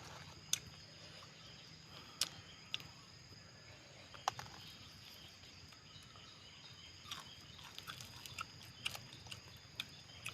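Scattered sharp clicks and crunches from chewing small bird meat, more frequent near the end, over a steady high-pitched insect drone.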